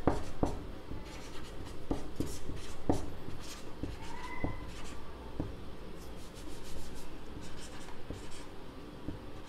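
Marker pen writing on a whiteboard: a run of short strokes and taps, with a brief squeak of the felt tip about four seconds in.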